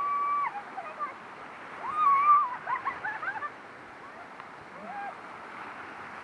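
Whitewater rapids rushing steadily around an inflatable raft, with high-pitched shrieks and whoops from the rafters: one long held cry at the start, a burst of wavering cries about two to three and a half seconds in, and a short one near five seconds.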